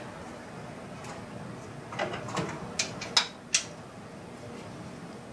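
A short run of sharp clicks and knocks of tools and parts being handled in a car's engine bay, bunched between about two and three and a half seconds in.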